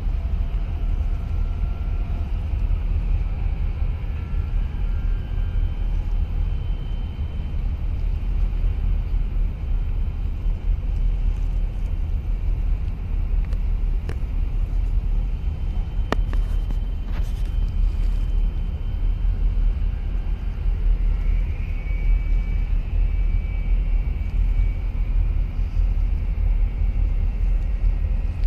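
Steady low rumble of harbour ambience at the water's edge. A couple of brief clicks come a little past the middle, and a faint high tone enters about three-quarters of the way through.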